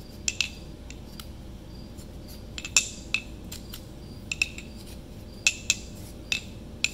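A piston ring groove cleaning tool being turned around a small-block Chevy 350 piston's oil ring groove, giving a dozen or so irregular, sharp metallic clicks and clinks as it scrapes carbon out of the groove.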